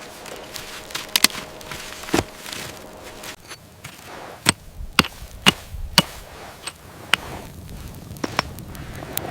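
A series of sharp cracks or knocks over a steady hiss, four of them evenly spaced about half a second apart in the middle.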